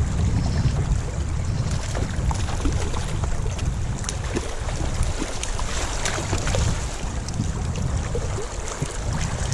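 Gusty wind buffeting the microphone, a heavy, uneven low rumble, over the steady rush of creek water.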